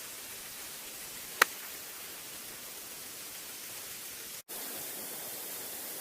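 A golf club striking a ball once, a sharp click about a second and a half in, over a steady hiss of outdoor background noise. The sound drops out for an instant near the end where the recording cuts.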